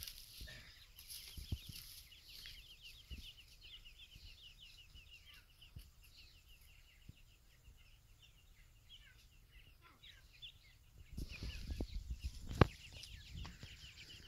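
Grey francolin chicks peeping: many short, falling chirps in quick succession, thinning out in the middle. Near the end a brief rustle and one sharp knock, the loudest sound here.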